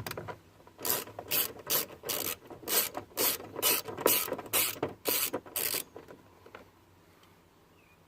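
Hand ratchet with a 6 mm socket backing out a small door-panel screw: a rapid run of rasping ratchet clicks, about two to three strokes a second, stopping a little before six seconds in.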